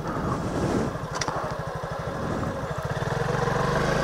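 Suzuki Gixxer's single-cylinder engine running at low revs with distinct firing pulses, which quicken about two and a half seconds in as the bike accelerates and the revs rise.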